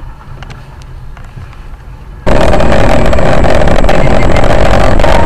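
Low rumble of a car's road and engine noise picked up by a dash camera, then about two seconds in a sudden jump to a loud, steady rushing noise with a strong hum in the middle.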